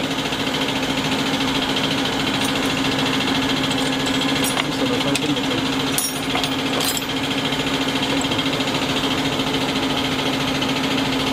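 Diesel injection pump test bench running with a steady mechanical hum and hiss, supplying high-pressure test oil to a Bosch inline injection pump. A few short clicks of metal parts being handled sound over it.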